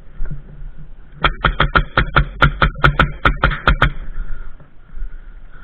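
Airsoft gun firing a rapid string of about fourteen sharp shots, roughly five a second, starting about a second in and stopping near the four-second mark.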